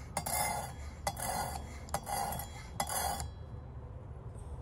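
Knife edge being stroked across the abrasive stone of a Work Sharp guided sharpener: four scraping strokes a little under a second apart, each starting with a click, stopping a little after three seconds in.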